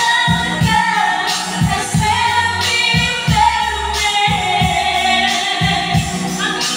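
Women singing live into microphones over backing music with a steady beat.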